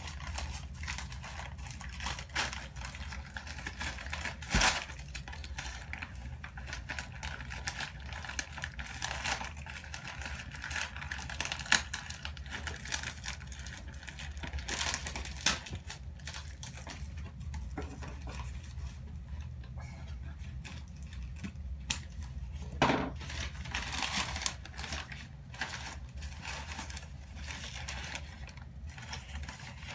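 Irregular rustling, crinkling and clicking of packaging being pulled open and unwrapped from a shipped orchid, with a few sharper snaps, over a steady low hum.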